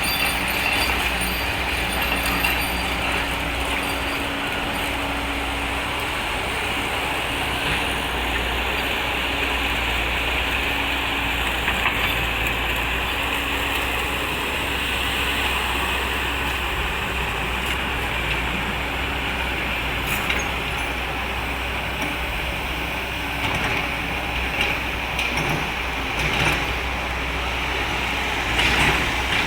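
Excavator engine running steadily under work, with a steady low hum and a few louder irregular bursts near the end.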